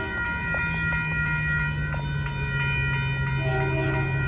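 Union Pacific freight train approaching, the diesel locomotive's low steady drone coming in about a second in beneath several steady high ringing tones.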